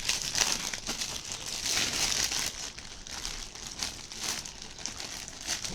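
Irregular crinkling and rustling, with a few light clicks, from a laptop being fitted into a 15.6-inch laptop sleeve.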